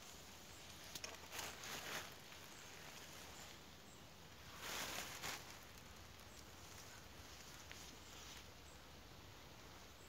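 Quiet outdoor ambience with a few faint rustling, shuffling noises from someone moving about: a cluster between one and two seconds in and another near the middle.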